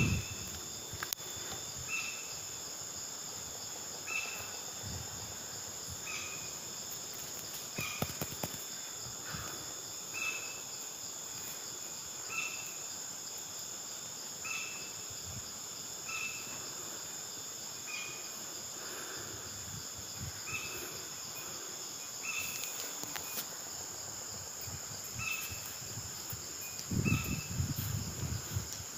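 Steady chorus of insects, like crickets, with a short chirp repeating about every two seconds. Brief low bumps and rumbling come near the end.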